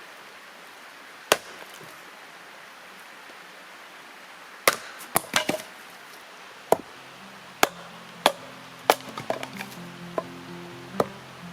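Wood being chopped: sharp, separate strikes at irregular intervals, one early and then a run of about nine blows from the middle on. Soft music comes in during the second half.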